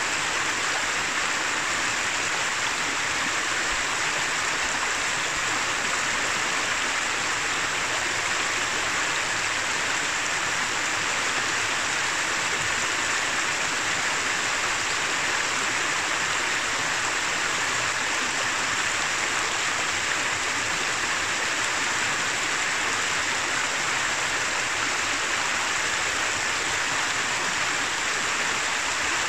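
Shallow mountain river running over rocks and stony riffles: a steady, even rush of water, bright and hissy rather than deep.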